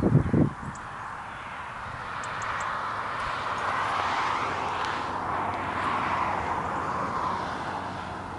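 Road traffic passing: the hiss of car tyres on the road swells up, holds through the middle and fades away near the end. A few low thumps come in the first half second.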